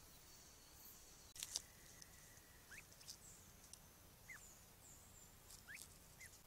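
Faint forest sound: steady high insect trilling is cut off a little over a second in by a couple of sharp clicks. Then, over quiet daytime forest ambience, come four short rising chirps from a bird.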